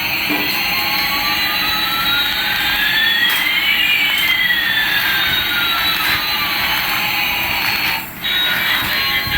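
Simulated jet-engine sound of a toy airliner: a steady hiss with one whine rising while another falls, the two crossing about halfway through, briefly cutting out near the end.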